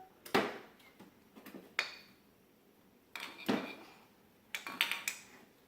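Small hard objects clattering and clinking as they are handled and set down, in four short bursts, some with a brief ringing tone.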